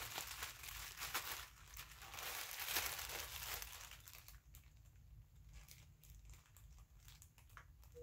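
Paper wrapping on a package crinkling as fingers handle it and pick at it to open it. The crinkling is busiest in the first half, then thins out to scattered small rustles and ticks.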